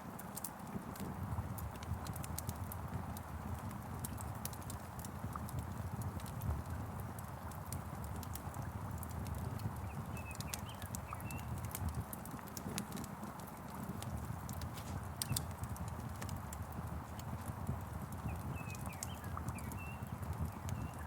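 Wood fire crackling, with frequent sharp pops over a steady low rumble and a hiss of rain. Short faint bird chirps come about ten seconds in and again near the end.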